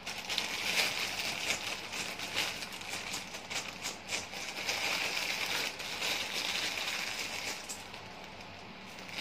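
Papad frying in hot oil: a steady sizzle with irregular crackles, easing off near the end.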